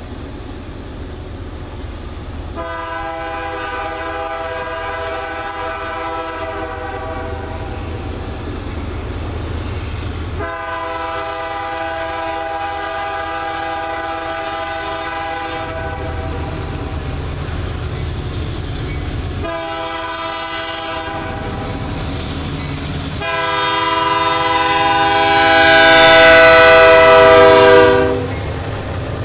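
Lead locomotive's multi-chime air horn, on Canadian Pacific GE AC4400CW 9800, sounding the grade-crossing signal: two long blasts, a short one, then a final long one that is the loudest as the train reaches the crossing. A low diesel rumble grows underneath.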